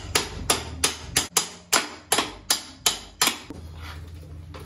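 About nine sharp metallic taps at an even pace of between two and three a second, as a metal tool strikes hardware at the footpeg and swingarm mount of a YZ250 dirt bike's frame. The taps stop about three and a half seconds in.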